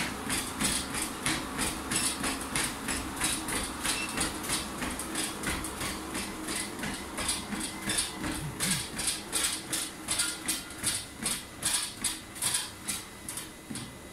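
Running footfalls landing on a motorized treadmill's belt, about three steps a second, over the low hum of the treadmill. The steps space out and soften near the end as the runner slows to a walk.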